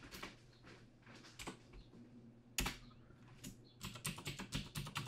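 Computer keyboard keystrokes, faint: a few scattered key presses, one sharper press about halfway through, then a quicker run of keys near the end.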